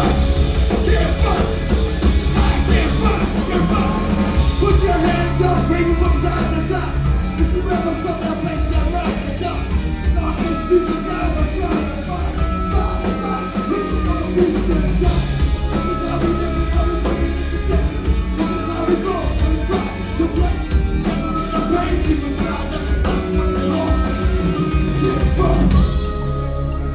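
Rock music with singing over a heavy, steady bass.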